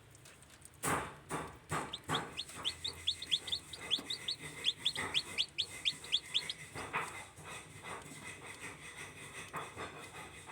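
Newly hatched native chicken chick peeping: a run of quick high peeps falling in pitch, about five a second, in the middle stretch. Sharp clicks and knocks come around them, the first and loudest about a second in.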